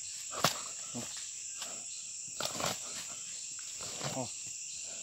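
Steady high-pitched buzz of an insect chorus, with scattered crackles and snaps of twigs and dry leaves being trodden through; the sharpest snap comes about half a second in.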